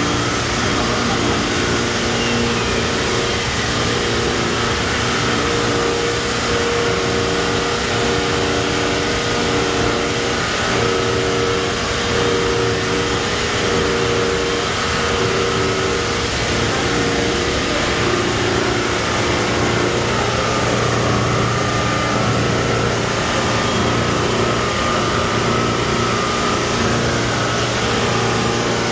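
GMK RECO130 dry all-in-one waste-wire chopping machine running steadily as wire is fed in: a continuous mechanical drone of motors and blower with several steady tones.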